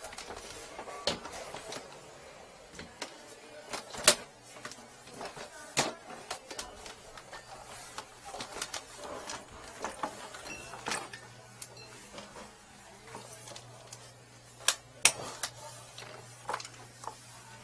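Scattered clicks, knocks and clatter of tools and cable being handled, with a few sharp knocks, and a faint low hum coming in about halfway through.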